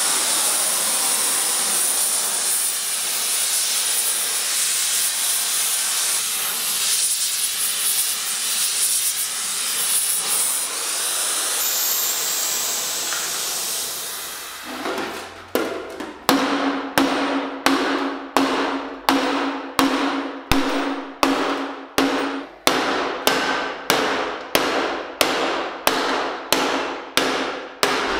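A steady hissing noise, then, about halfway through, a hammer starts striking steel armor plate in a regular rhythm, about three blows every two seconds, some of them ringing.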